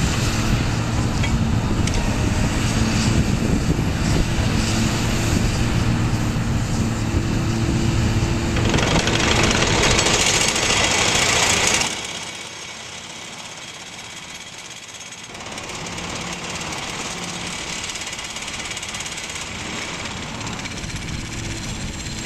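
Hydraulic vibratory pile driver shaking a timber pile into the ground: a loud, steady mechanical rattle and hum. About halfway through the loud vibration cuts off sharply, leaving a quieter steady running.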